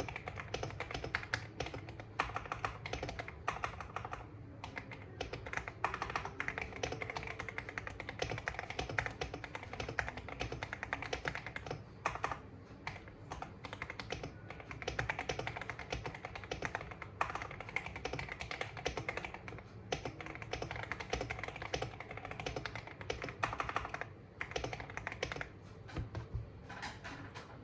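Steady typing on a KBD67 Lite R2 mechanical keyboard: lubed and filmed Gateron Black Ink linear switches on a polycarbonate plate in a plastic case, with Geekark BOW keycaps. The keystrokes come in a dense, uneven run with brief pauses twice.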